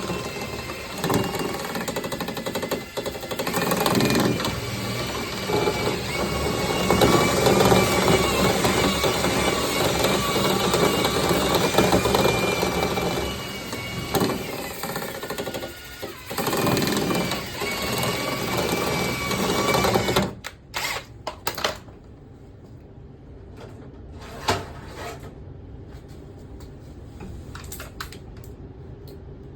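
Motorised dryer vent cleaning equipment running with a steady rushing noise and a wavering whine. It stops about twenty seconds in, followed by a few knocks and clicks.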